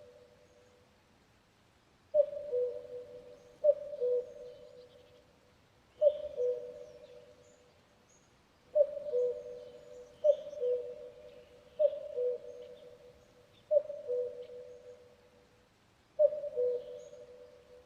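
Common cuckoo calling its two-note 'cuck-oo', a higher note falling to a lower one, eight times at uneven intervals of a couple of seconds. Faint chirps of other small birds sound in the background.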